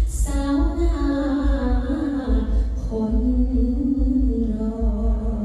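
A woman singing solo into a handheld microphone: a slow melody of long held notes that glide and waver between pitches.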